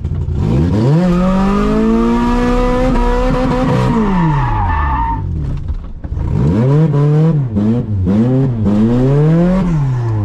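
A car engine is revved hard and held high while the tyres skid and squeal, then the revs drop. After that come several quick rev rises and falls as the car is manoeuvred, with the revs falling away near the end.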